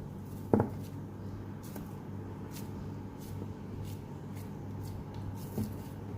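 Cookie dough being pressed and shaped by hand: faint rustling handling sounds over a steady low hum, with a sharp thump about half a second in and a softer one near the end.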